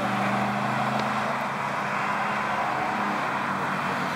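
Steady drone of a distant engine over a rushing hiss.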